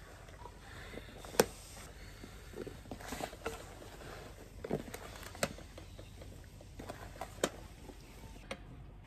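Hands working raw cubed goose and pork with dry seasoning and cure in a plastic tub: soft, wet squishing and shuffling of the meat, with a few sharp clicks. The loudest click comes about a second and a half in.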